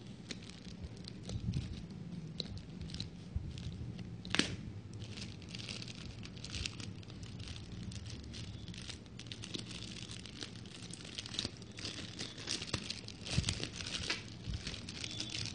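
Shipping packaging being torn open and handled: irregular crinkling and tearing of wrapping, with a sharper rip about four seconds in.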